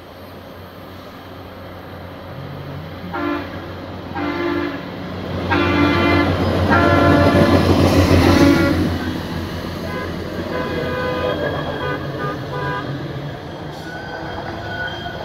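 Horn of a rail track maintenance machine sounding four blasts for a grade crossing (two short, a slightly longer one, then one of about two seconds), while its engine and wheels on the rail pass close by, loudest about eight seconds in.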